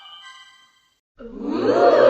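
The last notes of a Nokia 1110 ringtone fade out, followed by a short silence. About a second in, the next ringtone starts sharply: a loud, noisy rushing sound that swells up.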